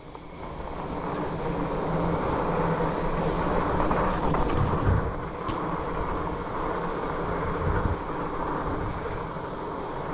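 Fatbike tires rolling over a hard-packed dirt trail, a steady rolling noise that builds over the first couple of seconds, mixed with wind buffeting the helmet-height action-camera microphone.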